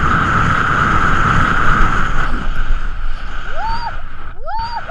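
Wind rushing over an action camera's microphone during a free fall on a rope jump, easing off after about two and a half seconds. Near the end, two short cries from a voice, each rising and then falling in pitch.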